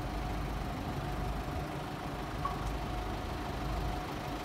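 Steady low mechanical rumble with a faint constant hum above it, engine-like, with no change through the stretch.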